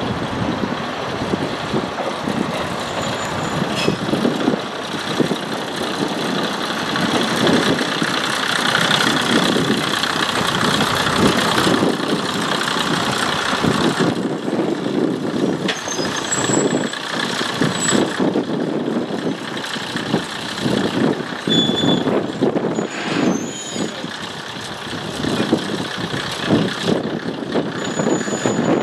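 KiHa 2004 diesel railcar running past on the yard track: engine running and wheels rumbling over the rails, loudest about a third of the way in as it passes close.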